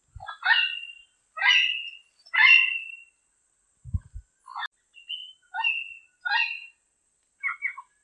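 Diademed amazon parrot calling: a run of about nine calls, the three longest and loudest in the first three seconds, the later ones shorter and quieter. Two brief low thumps sound near the start and about four seconds in.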